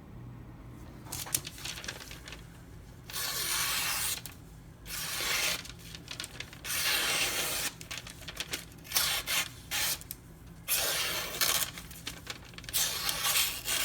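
Freshly sharpened M390 knife blade slicing through paper in about six separate cuts, each a rasping hiss of half a second to a second and a half, as a test of the edge's sharpness.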